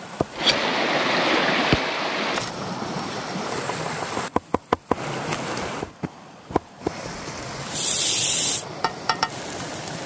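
A fast-flowing stream rushing throughout, louder for the first couple of seconds, with a large knife chopping fresh herbs on a wooden board: a quick run of sharp chops about four and a half seconds in, a few more near six and a half seconds, and another short run near nine seconds. A brief hiss about eight seconds in.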